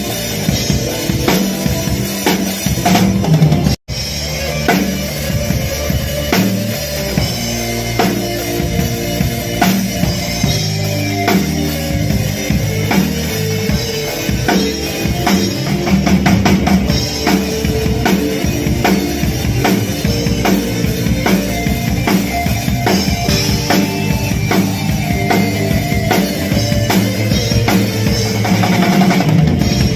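Music with a drum kit and heavy bass, a continuous driving beat, cut off for an instant about four seconds in.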